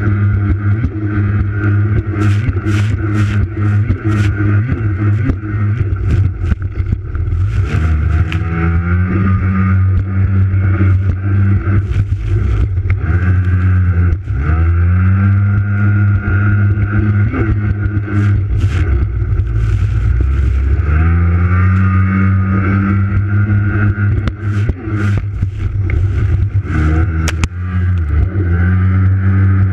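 Racing jet ski engine heard from a camera on its hood, running hard at high revs; its pitch drops and climbs back up several times with the throttle. Short sharp hits of water and spray against the hull and camera come throughout.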